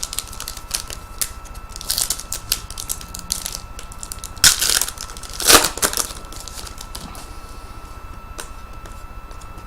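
Trading cards and pack wrappers being handled: a run of light clicks and taps as cards are flipped and slid, with louder crinkling, rustling bursts about two seconds in and again around five to six seconds in.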